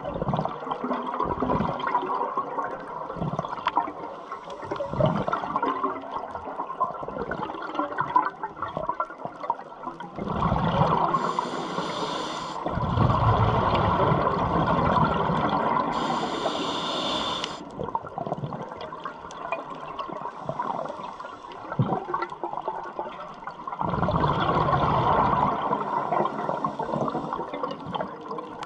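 Scuba regulator breathing heard underwater: short high hisses of inhalation and long rushes of exhaled bubbles, loudest from about ten to eighteen seconds in and again about twenty-four seconds in, over a constant fine crackling.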